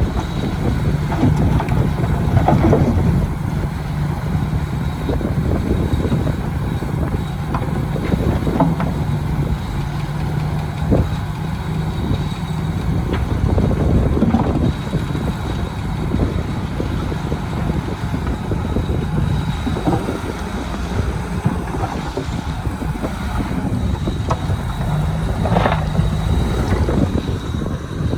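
Diesel engine of heavy earthmoving machinery running steadily, with occasional short knocks and squeaks.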